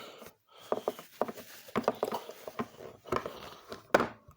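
Scattered small clicks and taps of handling, with a sharper knock about four seconds in.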